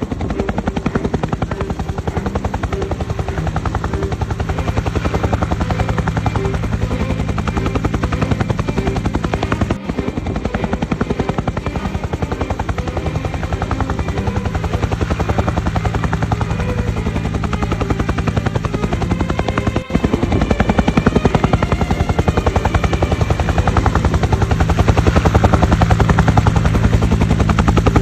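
Helicopter running steadily, its rotor blades beating in a rapid, even chop over a low engine drone, with brief dropouts about ten and twenty seconds in.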